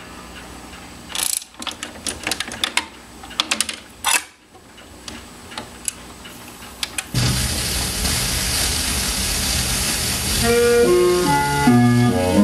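Garrard Type A record changer cycling: a run of mechanical clicks and clunks as a 78 rpm record drops onto the platter and the tonearm swings over. About seven seconds in, the stylus sets down and the 78's surface hiss starts suddenly. About ten seconds in, the record's music begins.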